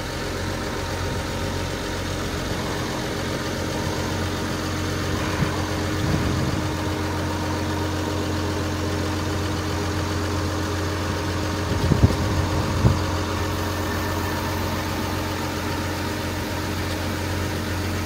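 Case wheel loader's diesel engine idling steadily, with two short knocks about two-thirds of the way through.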